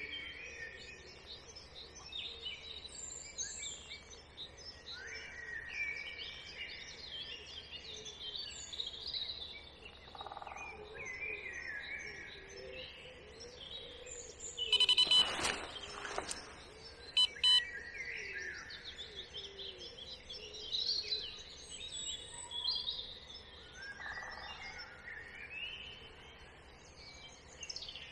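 Several songbirds singing in the early-morning dawn chorus, with overlapping short whistled and chirping phrases. About halfway through comes a louder burst of sound, followed a second later by two short sharp sounds.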